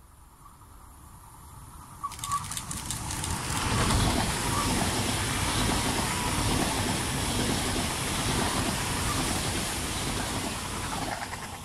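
Trenitalia Frecciarossa 1000 (ETR 1000) high-speed electric trainset passing close at speed. Its rush of wheels and air swells over the first few seconds, holds steady and loud while the carriages go by, and fades near the end.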